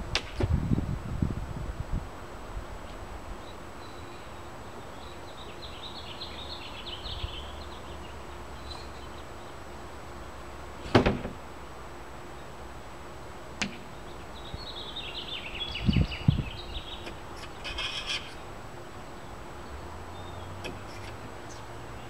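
Sporadic knocks and thumps from a pull knife (cold knife) being worked by its T-handle to cut out a windshield, with a sharp knock about halfway through. Birds chirp in between.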